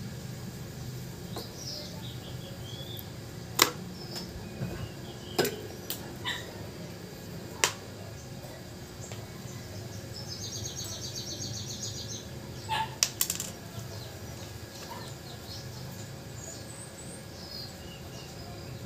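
Birds chirping on and off, with one short trill in the middle. A few sharp clicks and taps from small repair tools being handled cut through, the loudest about three and a half seconds in, another near eight seconds, and a quick pair about thirteen seconds in. A steady low hum runs underneath.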